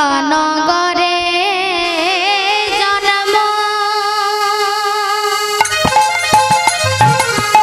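Kirtan music: a held, wavering sung line over sustained harmonium-like reed tones. About five and a half seconds in, a rhythm of sharp strikes and low drum beats comes in.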